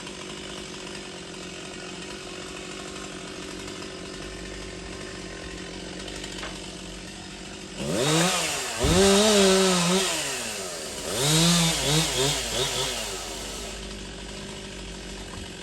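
Chainsaw running steadily at idle, then revved hard in rising and falling bursts from about eight seconds in for some five seconds as it cuts, before settling back to idle.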